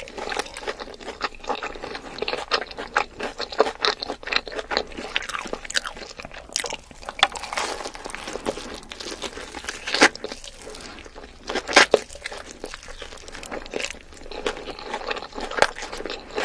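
A person chewing and crunching crisp food: a dense, irregular run of crackling bites and chews, with the two loudest crunches about ten and twelve seconds in.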